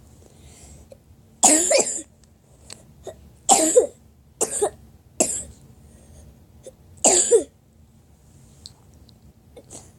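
A person coughing in a run of five harsh coughs spread over about six seconds, with short pauses between them.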